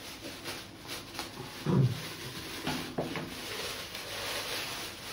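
Plastic wrapping crinkling and rustling as it is cut with scissors and pulled off a fabric lamp shade, with a few short low thumps near the middle as the shade is handled.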